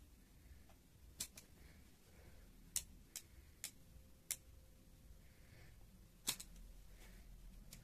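Sharp, irregular clicks and taps, about nine in all, as a selfie stick's plastic phone clamp and metal shaft are handled and adjusted; the loudest come a little under three seconds in and again a little after six seconds.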